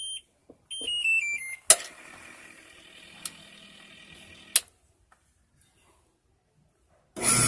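Washing machine control panel beeping a short falling tune of electronic tones about a second in. Then a click, a faint steady hum for about three seconds, another click, and near silence.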